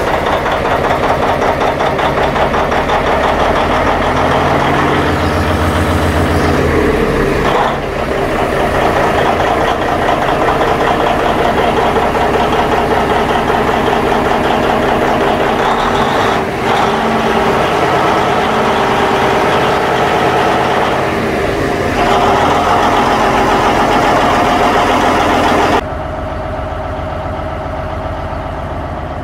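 Antique power shovel's big diesel engine running steadily, heard close up in the engine house. It drops back to a quieter, more distant running near the end.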